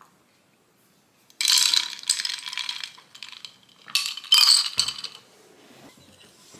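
Ice cubes rattling and clinking against the glass of an iced coffee as the glass is handled, in two bursts of about a second each.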